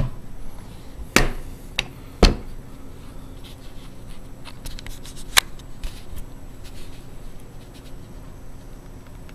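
Handling noises: a series of sharp clicks and knocks as hard objects are picked up and set down. The loudest comes about two seconds in, another about five seconds in, with fainter ticks between.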